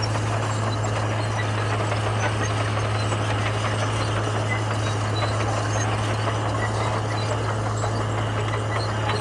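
Komatsu bulldozer's diesel engine running steadily, a constant low drone over a haze of mechanical noise.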